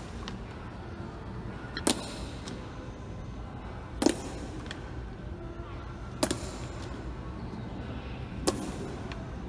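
Honor guard's slow march: boots stamping in unison on a stone floor, four sharp, echoing strikes about two seconds apart, over a steady low hum of the hall.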